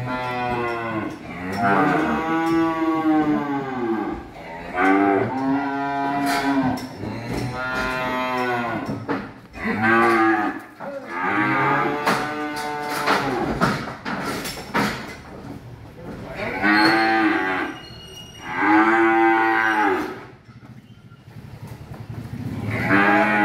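Cattle mooing again and again, several long bawls one after another with short pauses between, about nine in all.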